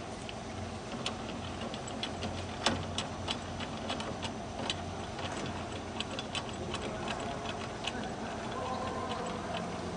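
Irregular light metallic clicking, a few clicks a second, as the jute cutting machine's cutter drum is turned slowly by hand, over a low steady hum.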